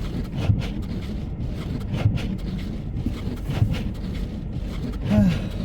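Car cabin driving noise on a snowy road, a steady low rumble, with a short swish-thump repeating about every second and a half, typical of windshield wipers sweeping snow. A brief rising-and-falling tone is heard near the end.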